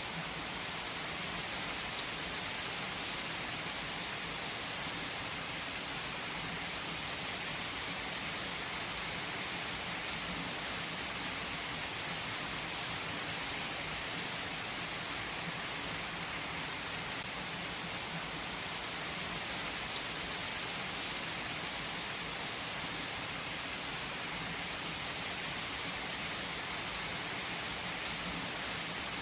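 Heavy rain falling steadily on trees, a dense even hiss with the odd sharper drop.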